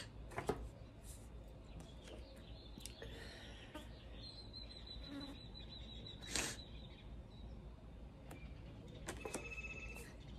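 Quiet sniffs and breaths of a woman weeping, the loudest sniff about six seconds in, over a low steady hum. A faint high steady tone runs for a few seconds in the middle.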